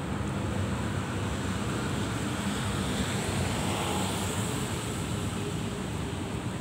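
Elevated metro train running along a viaduct, heard as a steady rushing rumble blended with distant city traffic, swelling slightly about midway.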